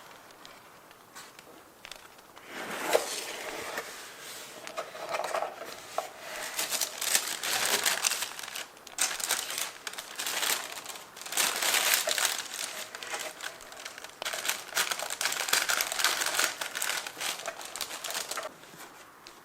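Paper being handled close up, crinkling and rustling in irregular bursts that start a few seconds in and stop near the end.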